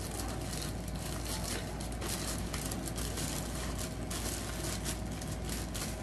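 Packaging rustling and crinkling continuously as a wrapped item is unwrapped by hand, over a low steady background hum.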